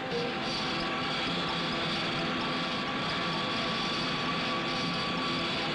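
Milling machine cutting locking lugs into a steel rifle receiver under a flow of cutting oil: a steady high whine over a continuous hiss.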